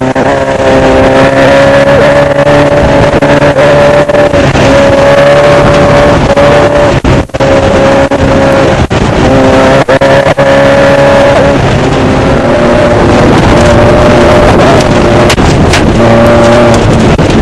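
Off-road desert race car's engine running hard at a high, fairly steady pitch, loud and distorted as heard from the onboard camera, with a few brief dips in the engine note as the throttle is lifted or a gear is changed.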